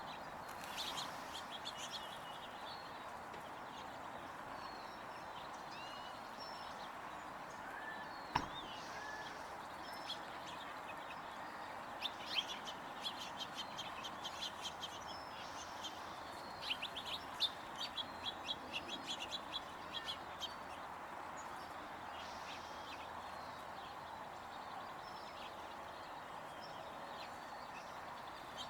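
Small birds chirping, with quick runs of high twittering calls in the middle stretch, over a steady background noise; a single sharp click about eight seconds in.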